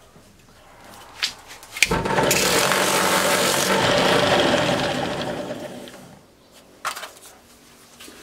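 Old Ferm bench drill press switched on with a thump about two seconds in, its motor running with a stacked-plywood sanding drum spinning in the chuck, then switched off and winding down over a second or so. A few light clicks and knocks of handling before and after.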